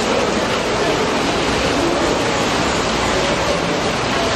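Steady rush of running water, an even unbroken noise.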